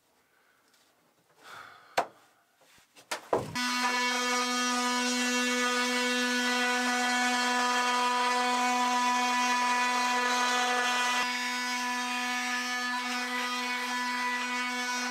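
A cordless handheld power tool starts about three and a half seconds in, after a couple of small knocks, and runs with a steady pitched buzz as it cuts away excess spray-foam insulation. Its sound drops a little about eleven seconds in.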